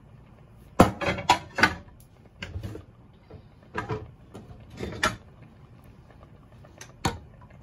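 Kitchen clatter: a quick run of sharp knocks and clacks about a second in, softer knocking a few times after, and one more sharp knock near the end.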